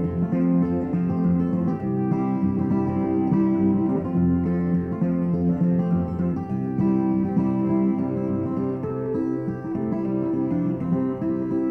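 Background music played on guitar.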